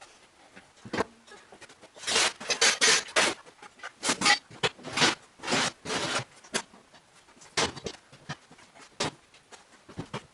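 Hand work on a car engine during a rebuild: a run of about a dozen short noisy strokes, bunched in the middle, with single knocks about a second in and near the end.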